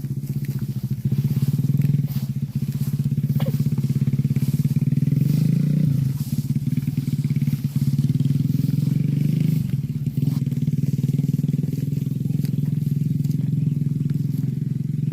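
A small engine running steadily with a fast, even pulse, shifting pitch slightly about six and ten seconds in.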